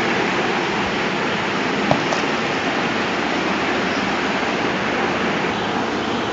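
Steady, even hiss-like background noise, with a single short click about two seconds in.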